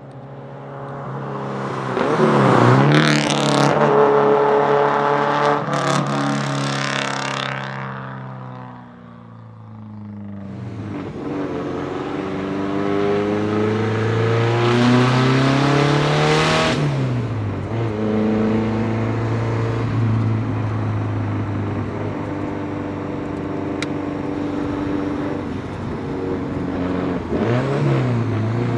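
Lancia Delta HF Integrale Evoluzione's turbocharged 2.0-litre four-cylinder with a straight-pipe exhaust, accelerating hard with the revs climbing and dropping at each gear change. It drives past and fades about eight seconds in, then is heard again from inside the cabin, pulling up through the gears.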